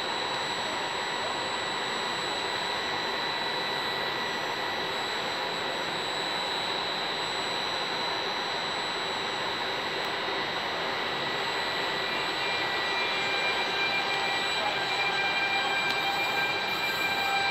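Trenitalia E.464 electric locomotive moving slowly past, its cooling fans blowing steadily under several high, steady electrical whines from its traction equipment. About two-thirds of the way through, further whining tones join and it grows slightly louder.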